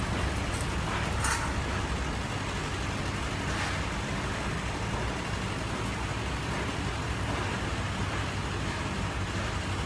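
Steady street traffic noise with engine hum, and two faint brief higher sounds about a second and three and a half seconds in.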